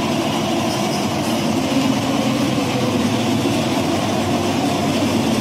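Football stadium crowd noise: a steady, even din from the stands, with no distinct chant or cheer.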